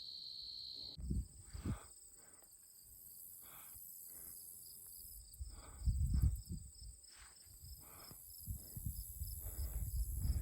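Insects chirring in a meadow: a steady high buzz that cuts off about a second in, with a thinner, higher insect trill going on underneath. Gusts of wind rumble on the microphone now and then, strongest near the end.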